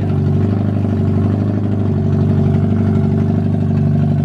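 A Mazda Miata's four-cylinder engine idling loudly and steadily on open headers, with no exhaust system fitted.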